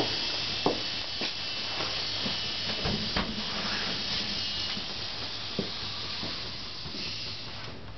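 Homemade 6-magnet, 12-coil Adams-type motor-generator running with its large aluminium rotor spinning steadily: a steady hiss over a low hum, with a few light clicks.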